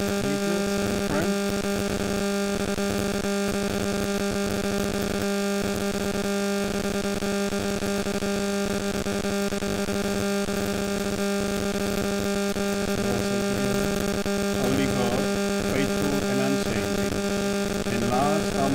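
Loud steady electrical hum with a buzzing stack of overtones, unchanging in pitch throughout, with a man's voice faint beneath it near the start and again near the end.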